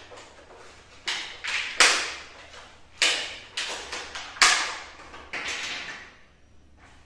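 A run of short, sharp crinkling rustles of plastic packaging being handled and torn as a tube of silicone sealant is opened, about seven in all.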